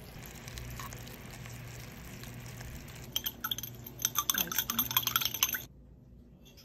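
Sugar syrup bubbling in a pan over a steady low hum, then, about three seconds in, a quick run of sharp clicks and clinks from a chopstick knocking among ice cubes in a bowl of ice water, testing whether the syrup has hardened. The clinking cuts off abruptly near the end.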